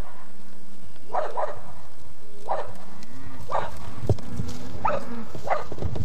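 A cattle herd coming in at a call, lowing, with ranch dogs barking among them: a series of short calls about once a second.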